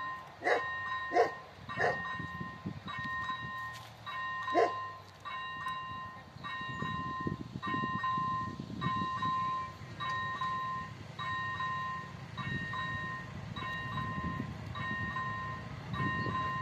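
Czech level-crossing warning signal sounding its repeating electronic bell tone, a little faster than once a second. A dog barks four times, three quick barks at the start and one more about four seconds in. These barks are the loudest sounds, over a low rumble.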